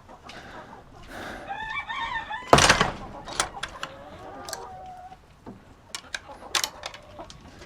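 Chickens calling, with a long wavering call about one and a half seconds in and another drawn-out call a little later. A loud sudden noise cuts in at about two and a half seconds, and a few sharp clicks follow later.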